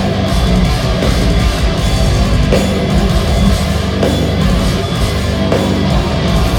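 Heavy metal band playing live at full volume in an arena: distorted electric guitars over heavy, driving drums.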